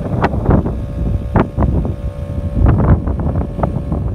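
Wind buffeting the microphone in irregular loud gusts, over a vehicle engine running steadily underneath.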